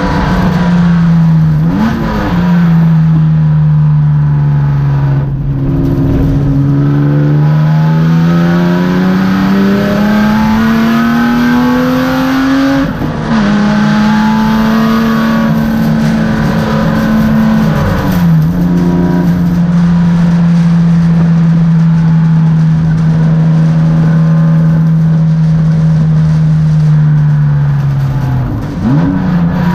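BMW E36 race car engine heard from inside the stripped, roll-caged cabin, running hard at speed. The revs climb slowly, drop sharply at two upshifts near the middle, then hold steady for long stretches. There is a brief dip and recovery near the end.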